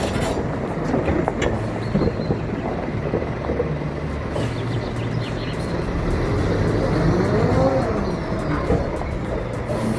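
Heavy logging truck's diesel engine running under load, its pitch rising and then falling back about seven seconds in.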